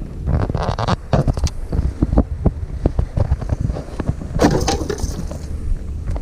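Clicks and knocks of rod and reel handling while a hooked bass is fought and landed, with a louder rushing burst about four and a half seconds in and a low rumble underneath.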